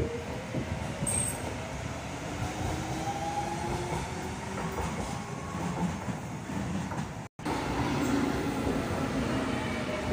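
Docklands Light Railway train pulling away: its traction motors whine and rise in pitch over wheel-on-rail rumble. After a brief cut about seven seconds in, a Jubilee line 1996-stock train runs along the platform, with motor whine over wheel and rail noise.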